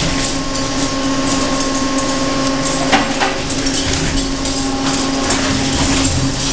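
Industrial shredder line running: a steady motor hum under continuous irregular clattering and knocking, with a sharper clack about three seconds in.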